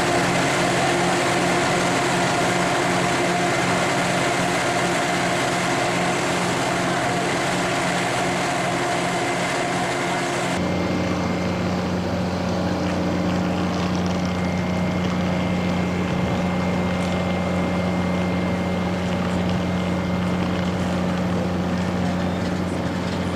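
Diesel locomotive engines idling: a steady drone with a pulsing beat. About ten seconds in it changes abruptly to a smoother, deeper hum.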